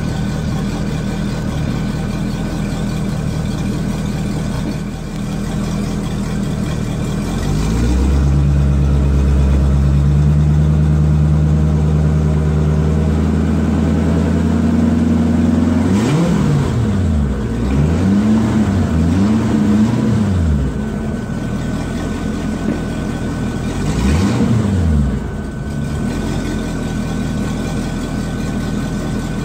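Volvo Penta sterndrive boat engine idling steadily, then brought up to a higher speed about a quarter of the way in, where it climbs slowly. It then gives several quick revs that rise and fall, one more a few seconds later, and settles back to idle.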